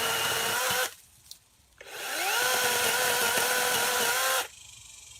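Greenworks 40-volt cordless electric chainsaw running in two bursts. Its steady motor whine cuts off about a second in. It spins up again with a rising pitch about two seconds in, runs steady, and stops shortly before the end.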